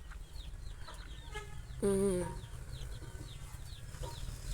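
Indigenous chicks peeping over and over with short, high, falling peeps, and a hen giving one louder, lower call about two seconds in.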